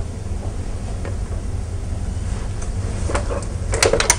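Electric panini press (contact grill) being closed on a sandwich: a few plastic clicks and clunks from the hinged lid about three seconds in, the loudest cluster near the end, over a steady low hum.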